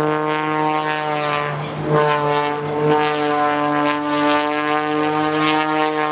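Propeller aircraft's piston engine running with a steady, even drone that holds one pitch, dipping briefly about two seconds in.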